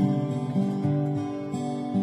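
Background music: a guitar piece.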